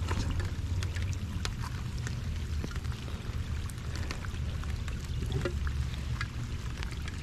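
Light rain pattering, scattered faint ticks over a steady low rumble.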